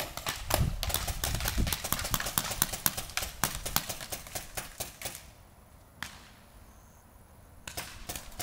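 Paintball markers firing rapid strings of sharp pops, several shots a second: cover fire. The shooting stops about five seconds in, with a single shot during the lull, and picks up again near the end.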